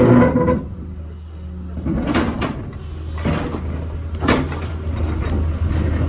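Caterpillar tracked excavator's diesel engine running with a steady low drone while its bucket teeth scrape and crack up old asphalt paving, with several sharp knocks and scrapes as the slabs break.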